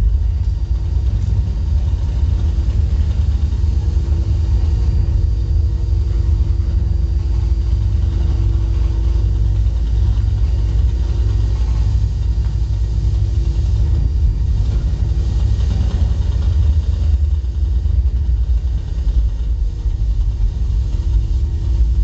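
A microwave oven's electromagnetic field, picked up through a coil heated inside it and played through an amplifier, comes out as a loud, steady bass rumble with a constant hum tone above it.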